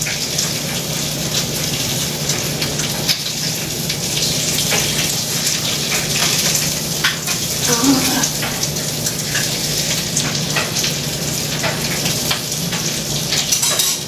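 Food frying in a hot pan: steady sizzling with dense fine crackles and spitting, over a low steady hum.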